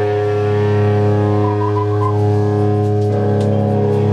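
Live band's electric guitars and bass holding long sustained chords, shifting to a new chord about three seconds in, with a short run of higher lead-guitar notes about one and a half seconds in.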